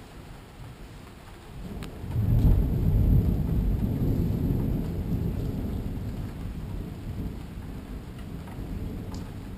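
Thunder rolling over steady rain: a deep rumble swells about two seconds in, peaks, then slowly fades over several seconds.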